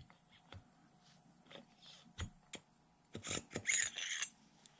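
Light metallic clicks and scrapes from a VS Racing 78/75 turbocharger's parts being handled as its turbine shaft is drawn out of the center housing: a few scattered sharp clicks, then a busier cluster about three to four seconds in.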